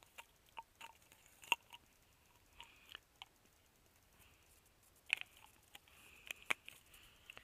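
Scattered small clicks and taps with light rustling from small gear being handled by hand, the sharpest clicks about a second and a half in and twice more near the end.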